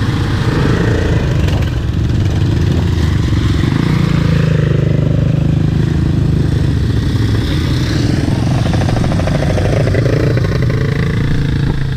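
Several ATV (quad bike) engines running, the engine note rising and falling a few times with the throttle.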